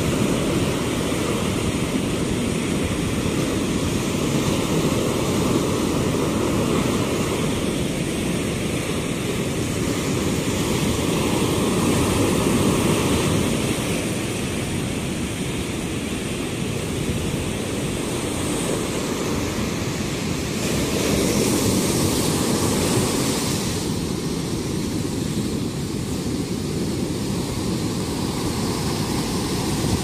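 Rough surf breaking on a sandy beach: a steady rush of waves that swells a little louder twice, around the middle and again after about twenty seconds.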